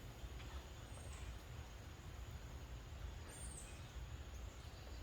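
Birds calling: a few short, very high notes that drop at the end, about a second in and again at about three and a half seconds, over a steady low rumble of wind.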